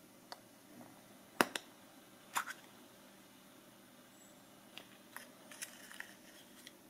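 A Kinder Surprise egg being opened by hand: sharp snaps and clicks as the chocolate shell breaks and the plastic toy capsule is popped open, the loudest about a second and a half in and another pair about a second later. Quieter clicks and rustles follow near the end as the plastic toy parts are pulled out of the capsule.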